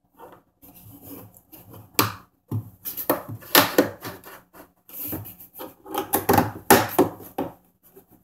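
A corrugated plastic ball-return hose on a foosball table being pushed and twisted onto its fittings: a run of rubbing, scraping and sharp clicks as the ribbed plastic drags against the fittings and the wooden panels.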